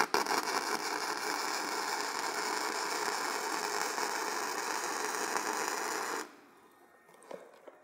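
Flux-cored arc welding on galvanized steel, the wire run DC electrode-negative: a steady arc noise that strikes at once, holds for about six seconds, and cuts off suddenly when the bead is finished.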